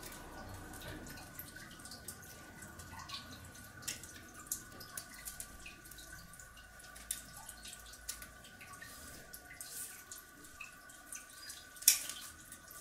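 Scissors snipping pairs of olive leaves off young twigs: small irregular clicks, with a louder one near the end, over a faint steady hum.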